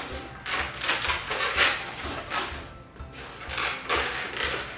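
Latex modelling balloons rubbing against each other as they are pushed together and handled, over background music with a steady low beat about twice a second.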